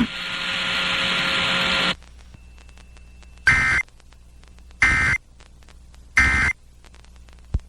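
Weather radio static hiss for about two seconds, then three short, identical data bursts of EAS/SAME end-of-message tones, about 1.4 seconds apart, marking the end of the warning.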